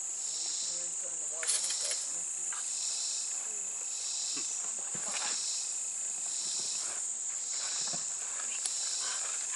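Insects chirping: a steady high-pitched buzz with a pulsing chirp that repeats about once a second.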